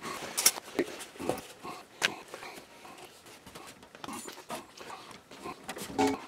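Handling noise: a cloth dust-collector filter bag rustling and scraping as it is pulled over the outlet by hand, with irregular small knocks and clicks.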